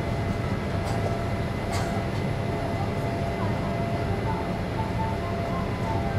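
Steady engine and airflow rumble of a Boeing 787 Dreamliner in its climb after takeoff, heard from inside the passenger cabin. Two faint clicks come about one and two seconds in.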